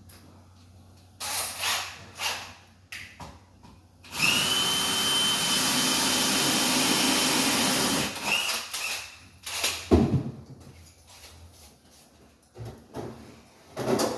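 Power drill running steadily for about four seconds with a high whine, amid handling clatter before it and a sharp knock about ten seconds in.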